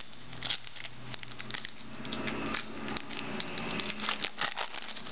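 Trading cards being handled and slid through by hand: a run of quick, light clicks and paper-like rustles as cards are flipped one after another.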